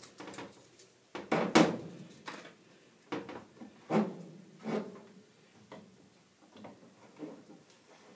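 Irregular knocks and clunks of metal gas pipe fittings and tools being handled and set down, loudest about a second and a half in, then thinning to fainter taps.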